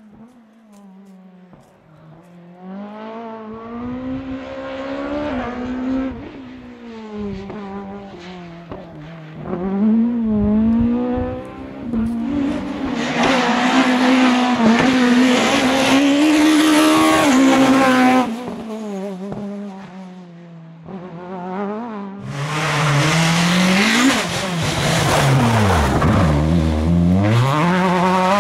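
Rally car engines at high revs on tarmac stages, pitch climbing and dropping through gear changes and braking downshifts. The engines are faint for the first few seconds, then loudest as cars pass about halfway through and again near the end.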